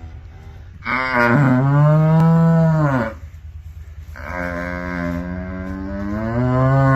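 Dairy cow mooing twice, two long loud calls with a short pause between, over a steady low hum.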